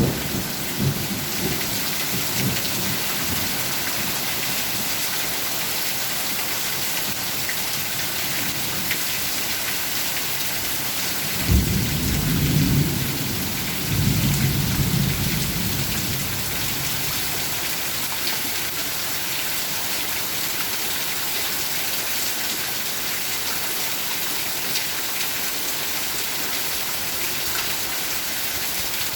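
Steady rain pouring down, with rolls of thunder: a few low rumbles at the start and a louder double roll about twelve seconds in.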